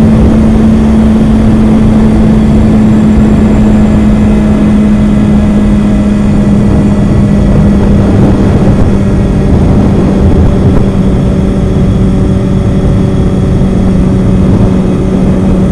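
Kawasaki ZX6R 636 inline-four engine running at steady revs under way, over heavy wind rush on the microphone. The engine note drops a little about halfway through.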